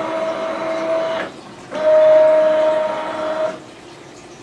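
Rollease Acmeda Automate tubular roller-shade motor running twice with a short pause between, a steady hum each time: the shade rolls down briefly, stops, then rolls back up. The second run is louder and a little lower in pitch.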